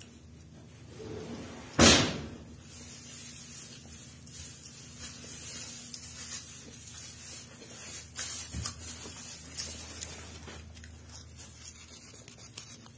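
Eating a ripe, peeled apple mango: a loud sudden slurp about two seconds in, then quieter wet chewing and mouth clicks.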